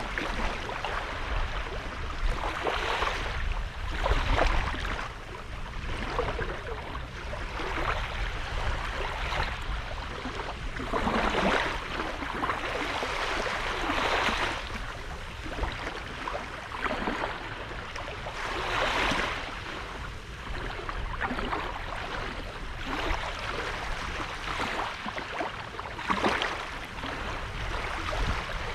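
Small sea waves breaking and washing up the shore, a fresh wash swelling and fading every two to three seconds over a steady low rumble.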